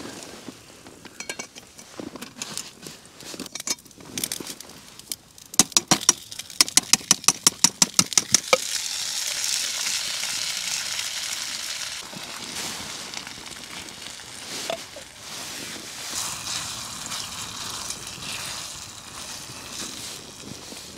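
A tin of curry being opened with a quick regular run of metal clicks, about four a second. Then the curry goes into a hot pan of rice on a camping stove and sizzles steadily while a spoon stirs it.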